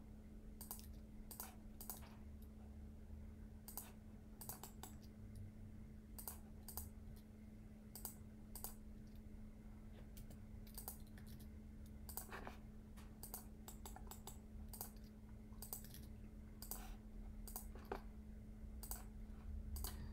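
Faint, irregular clicks of a computer keyboard and mouse, scattered singly and in small clusters, over a steady low hum.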